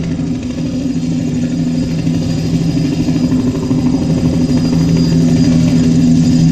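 A steady low drone of two held notes about a fifth apart, unchanging in pitch, over a haze of hall noise.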